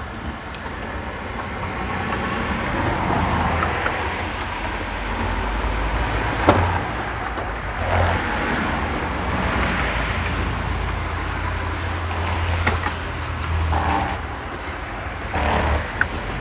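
Road traffic passing close by: a sustained low engine rumble and tyre noise that swells over the first few seconds and eases near the end, with a few sharp clicks.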